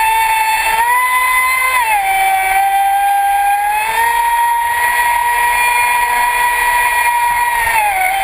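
Traxxas Spartan RC boat's brushless electric motor running under power, a high steady whine over a rush of water and wind. The pitch steps up about a second in, drops at about two seconds, climbs again near four seconds and falls near the end as the throttle changes.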